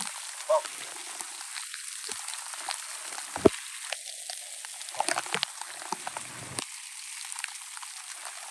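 Scattered clicks and scrapes of small stones and gravel as a hand trowel digs in stony soil and loose stones are handled, with a sharp click about three and a half seconds in and a cluster of clicks near the middle, over a steady hiss.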